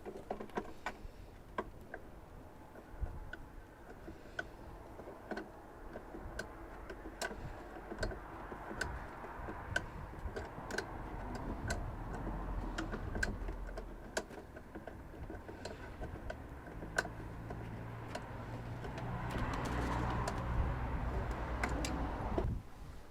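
Irregular light clicks and taps, roughly one a second, from handling the wall charger and its tethered cable. A low steady hum joins in about three quarters of the way through and stops shortly before the end.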